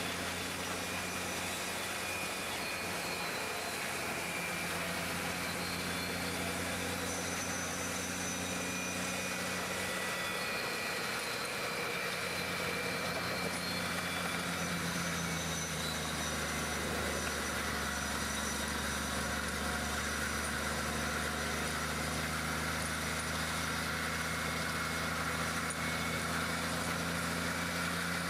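Large diesel engine of a 700-horsepower Bucketmouth stump grinder running steadily under load while it grinds out stumps, its pitch shifting slightly a couple of times, with a faint high whine above it.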